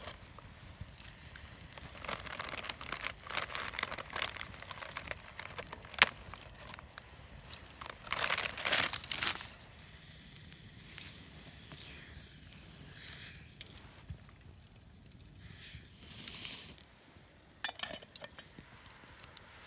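A food packet crinkling and rustling as it is handled, loudest about eight to nine seconds in. After that, a campfire crackles with scattered small pops.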